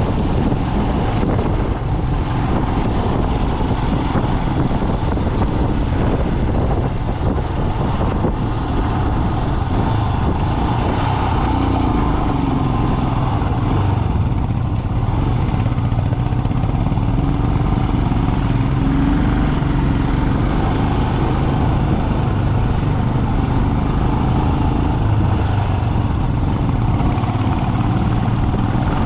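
Steady vehicle engine and road noise while driving.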